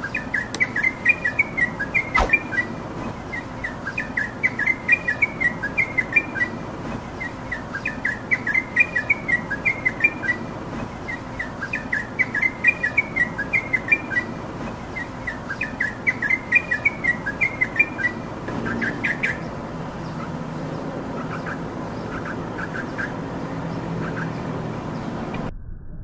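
Yellow-vented bulbul singing: a bubbling phrase of quick chirpy notes, repeated about every four seconds five or six times, then it stops for the last third, leaving a steady background noise that cuts off sharply just before the end.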